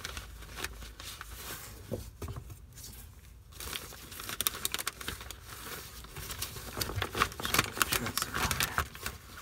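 Plastic zipper bag crinkling and rustling as it is worked around an engine oil filter, in irregular crackles that grow busier about halfway through.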